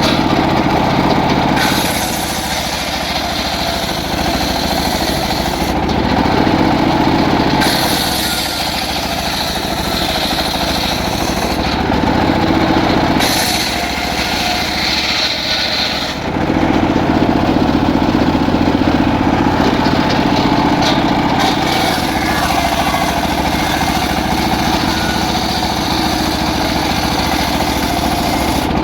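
Engine-driven circular saw (gergaji serkel) running continuously while splitting teak. Its tone shifts every few seconds as the cut changes.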